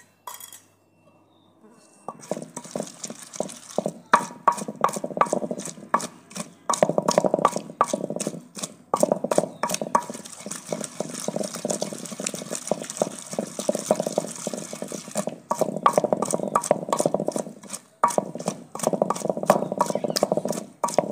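Long wooden pestle pounding and grinding a wet mint, green chilli and onion chutney in a terracotta clay pot, to make the chutney. Rapid, steady knocks start about two seconds in and go on with a few short breaks.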